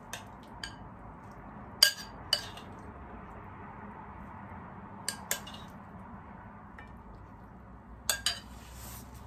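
Metal spoon clinking against a glass bowl and a plate as a salad is spooned out: sharp, separate clinks, mostly in quick pairs, the loudest about two seconds in and another pair near the end.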